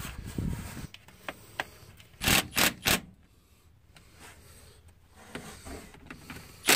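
Three quick sharp knocks from working on the truck's battery cables, then one louder knock near the end, with a short low rumble at the start.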